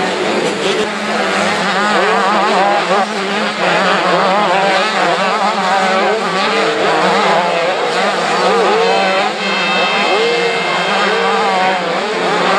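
A pack of motocross bikes racing round the track, several engines revving up and down at once as the riders work the throttle through the corners and jumps.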